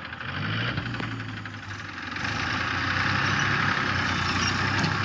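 Massey Ferguson 1035 DI tractor's diesel engine running steadily with its mud-bogged wheels. About two seconds in it grows louder and rougher as it works to pull out of the mud.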